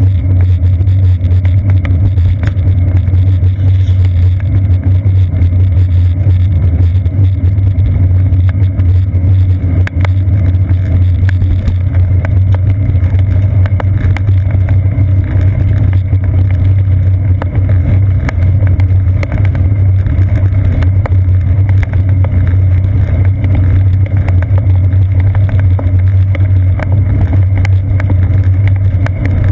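Steady, loud low rumble of a bicycle rolling along a wet street, picked up through a seat-post-mounted GoPro Hero 2: tyre and road vibration carried up the frame, with small scattered clicks from bumps.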